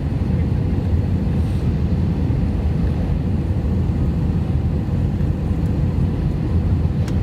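Steady low rumble of an Airbus A319's jet engines and airflow heard inside the passenger cabin, with a faint steady hum above it.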